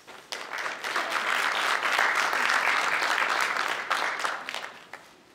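Audience applauding: the clapping rises quickly just after the start, holds steady through the middle and dies away near the end.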